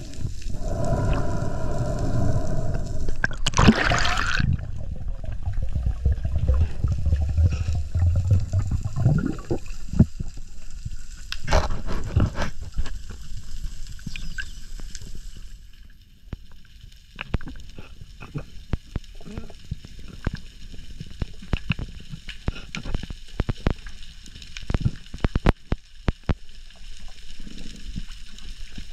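Underwater sound picked up through an action camera's waterproof housing during a dive: rushing, gurgling water with a low rumble for the first several seconds, then quieter water with many scattered sharp clicks.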